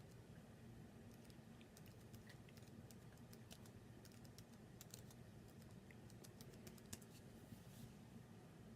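Faint typing on a computer keyboard: irregular key clicks, thickest in the second half, over a low steady hum.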